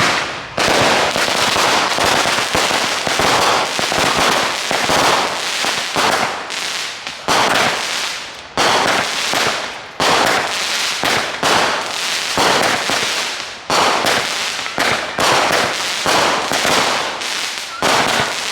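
Consumer fireworks going off in quick succession: a sharp bang about once a second, each followed by a crackling hiss that fades.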